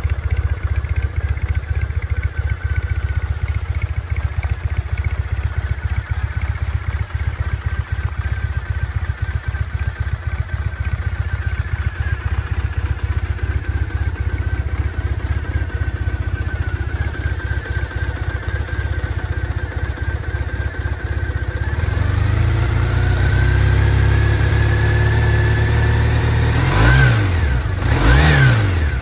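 2013 Triumph Thruxton 900's air-cooled parallel-twin engine idling steadily while it warms up from a cold start. About three-quarters of the way through, the engine speed rises and holds a little higher. Near the end come two quick throttle blips.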